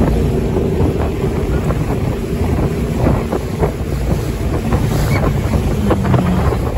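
Towing motorboat running at speed, with heavy wind buffeting on the microphone and the rush of churned water and spray, dotted with short splashes.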